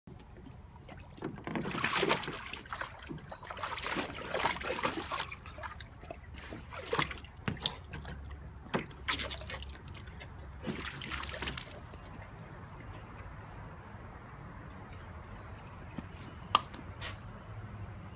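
Water splashing and sloshing in a plastic kiddie pool as a dog wades and noses at floating toys, in irregular bursts. After about twelve seconds it goes quieter, with one sharp tap near the end.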